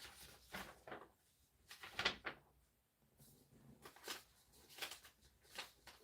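Faint handling sounds: scattered light knocks, clicks and rustles of objects being moved, the loudest a pair of sharp knocks about two seconds in.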